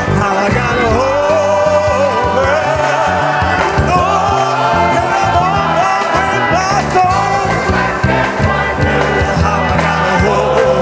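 Gospel choir and soloists singing live, one lead voice sliding and bending between held notes above the choir.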